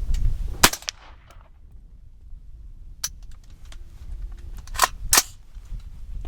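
A single 300 Blackout rifle shot firing subsonic 220-grain ammunition about half a second in, followed later by a few small clicks and two sharp cracks near the end. The load does not cycle the semi-automatic action.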